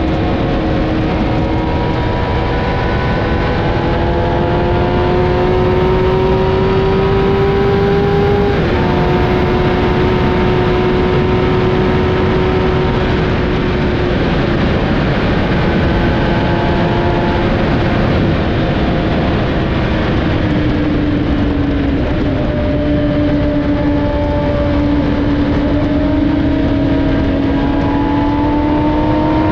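Kawasaki 1000 sport bike's inline-four engine pulling at high revs at highway speed under a heavy rush of wind. The engine note climbs slowly, drops sharply with an upshift about nine seconds in, dips again a little past twenty seconds, then climbs once more.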